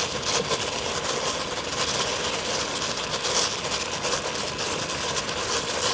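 Water boiling steadily in a steamer pot under a basket of pumpkin leaves: an even bubbling hiss with fine crackle.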